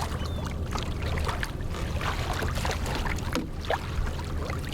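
Water splashing and lapping against a kayak hull, with scattered short splashes and knocks over a steady low rumble.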